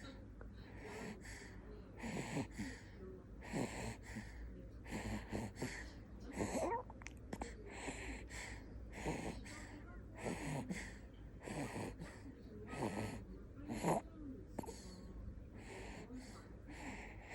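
Newborn baby snoring: a steady rhythm of noisy breaths about every second and a half, some carrying a squeaky whistling tone.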